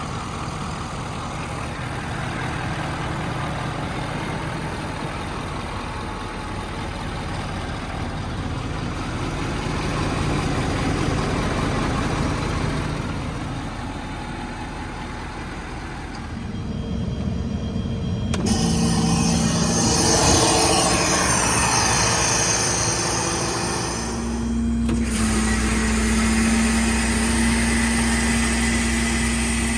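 The F-550's 6.7-litre Power Stroke diesel engine running. A little past halfway the sound changes to a steadier mechanical hum with a held tone, and it steps up again with a stronger low drone near the end.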